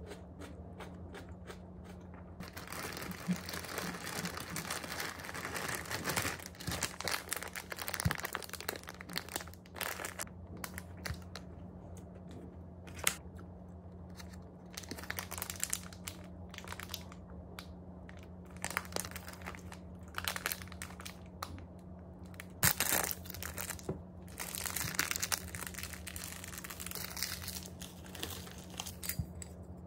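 Clear plastic pastry wrapper crinkling and rustling in irregular bursts as it is handled and opened, with a few sharp clicks and taps.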